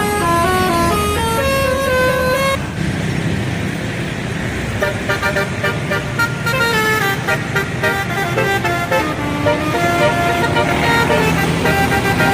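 Bus 'telolet' horn playing a quick melody of stepped notes, which breaks off about three seconds in; then a faster run of short horn notes comes in over traffic noise.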